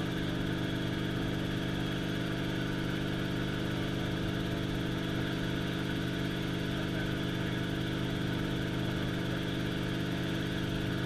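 Light helicopter in steady flight heard from inside the cabin: engine and rotor drone evenly, with a constant hum that does not change in pitch or level.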